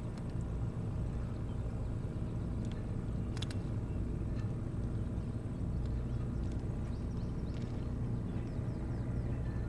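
Steady low motor hum, with a few faint high chirps and ticks over it.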